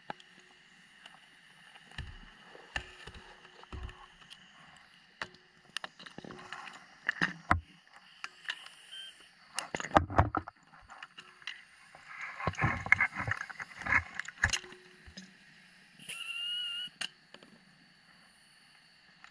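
Underwater sounds of a rebreather diver's gear heard through the camera housing: scattered sharp clicks and knocks, rushes of bubbling noise about 10 seconds in and again a couple of seconds later, and a hiss with a steady whistle-like tone lasting about a second near the end.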